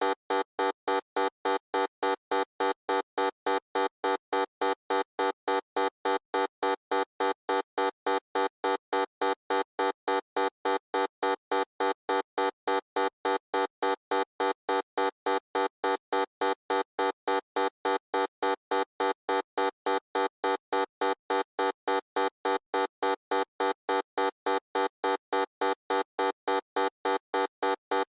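Harsh electronic buzzer beeping on and off in a fast, perfectly even rhythm, several pulses a second, each pulse one tone with many overtones.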